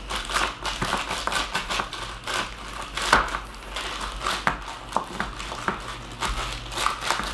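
A plastic snack bag worn over the fingers crinkling in quick, irregular crackles as a sticky mixture is pressed flat into a plastic container.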